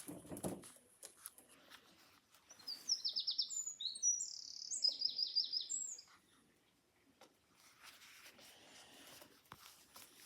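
A small songbird singing one short phrase of quick, high chirps and trills, from about two and a half to six seconds in.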